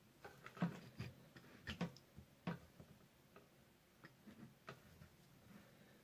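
Faint, irregular clicks and light knocks of hands handling a soldering iron, a battery wire and an XT60 connector, with the iron set down on the bench. There are about five sharper knocks in the first two and a half seconds, then a few fainter ones.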